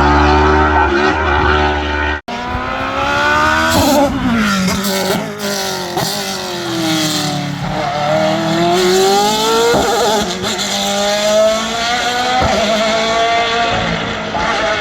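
Race car engine at high revs. The note first holds steady, then after an abrupt cut it climbs repeatedly, each climb ending in a sudden drop as the car shifts up through the gears under hard acceleration.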